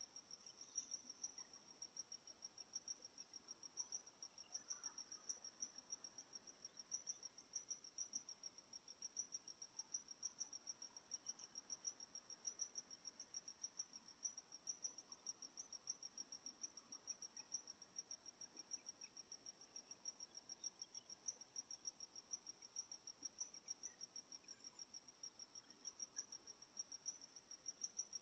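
A cricket chirping: a faint, high-pitched, fast and even run of chirps that keeps on steadily.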